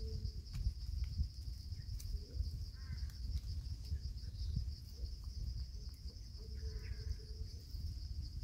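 Steady, unbroken high-pitched drone of insects in forest, over a low rumbling noise, with a few faint short calls about three and seven seconds in.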